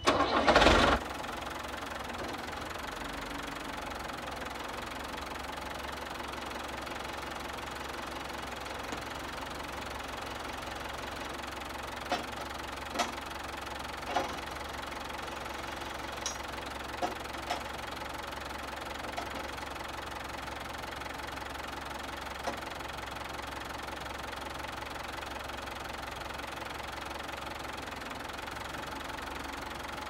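A New Holland backhoe loader's diesel engine starts with a short loud burst, then idles steadily. A few sharp clicks and clanks come in the middle.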